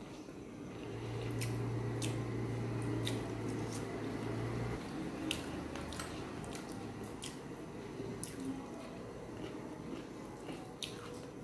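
Close eating sounds of rice and curry eaten by hand: chewing and wet squishing, with small sharp clicks scattered through. A low steady hum runs from about a second in until near the middle.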